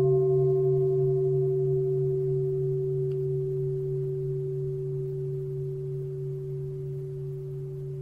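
A large meditation bell ringing on after being struck and slowly fading. A low pulsing hum sits under clearer higher tones, and the upper tones die away first.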